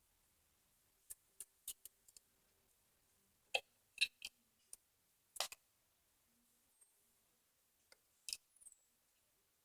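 Scattered sharp metallic clicks and clinks, the loudest a few in the middle and one near the end: small engine parts being handled while fitting the cam sprocket and timing chain on a 150cc Chinese engine head.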